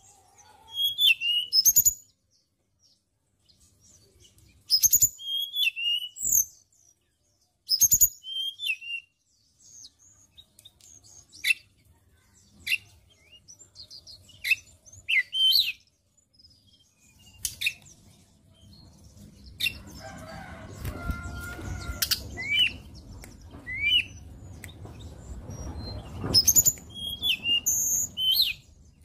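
Hill blue flycatcher singing in short bursts of high, quick whistled notes that slide up and down, with sharp knocks and wing flutters between phrases as it moves about the cage. A low rumbling background noise comes in about two-thirds of the way through.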